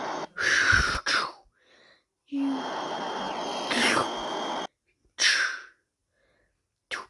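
Mouth-made sound effects: hissing, blowing bursts of breath. A long one fills the middle, then a shorter one with falling pitch, then a quick run of short falling bursts near the end.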